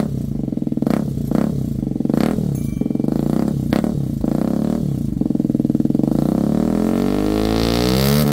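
Hero Karizma XMR 210's single-cylinder engine running through a bent-pipe dual exhaust with SC Project carbon cans. It idles with several short sharp blips in the first half, then revs up steadily over the last two seconds.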